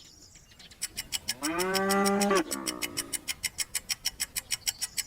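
A cow mooing once, a single drawn-out moo lasting about a second and a half, with a fast, even ticking of about six beats a second underneath.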